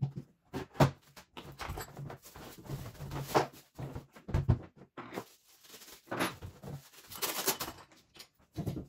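Hard plastic tool case being unlatched and opened, then a rotary hammer drill lifted out and set down on a wooden floor: irregular clicks, knocks and plastic rattling, with a sharp click about a second in.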